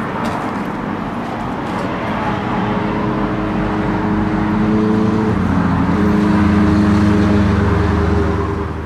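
Road traffic: a motor vehicle's engine passing by, growing louder to its loudest about seven seconds in, then dropping away near the end.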